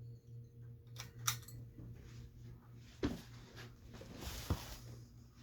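Hampton Bay St. Vincent ceiling fan motor running in reverse with a steady low hum, broken by a few sharp clicks and a brief rustle.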